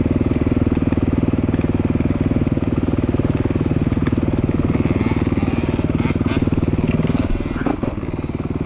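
Dirt bike engine running steadily under throttle on a trail, its rapid firing pulses clearly heard. About seven and a half seconds in, the engine note drops and eases off as the throttle is backed off.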